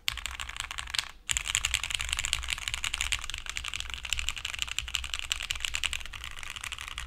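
Fast, continuous typing on a Piggy60 60% custom mechanical keyboard with lubed and filmed SP Stars Meteor White switches and no case foam, giving a clacky sound. There is a short break about a second in.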